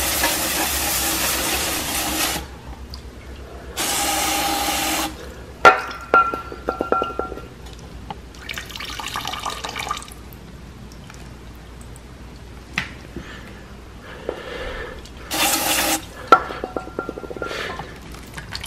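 Aerosol brake cleaner hissing in several bursts into an open Dana 44 differential housing: a long spray of about two seconds, a shorter one around four seconds in, a fainter one near nine seconds and a brief one near sixteen seconds. Between the sprays, solvent and old gear oil drip and trickle off the housing into a bucket of oil.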